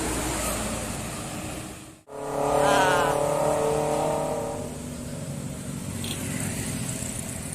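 Tour bus running as it passes on the uphill road. After a sudden cut about two seconds in, a louder sound of several steady pitched tones comes up and fades out by about five seconds, leaving steady traffic noise.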